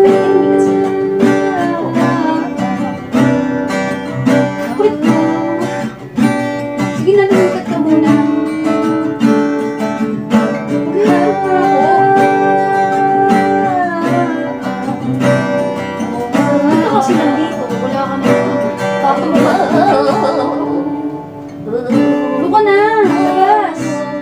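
Acoustic guitar strummed as accompaniment to a woman singing a song.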